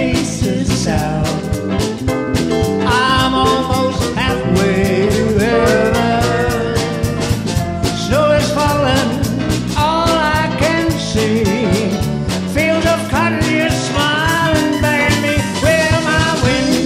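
Live western swing band playing, with a man singing the melody over electric bass, guitar and drums keeping a steady swing beat.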